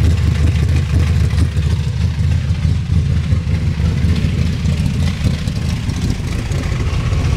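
Chevrolet 400 small-block V8, bored to a 408 stroker, idling steadily and loudly through straight exhaust pipes with little cherry bomb mufflers.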